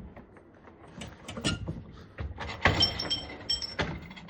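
Metal pipe fittings clinking and rattling against each other as they are handled. A few separate sharp clicks come first, then a longer clatter with short metallic ringing in the middle.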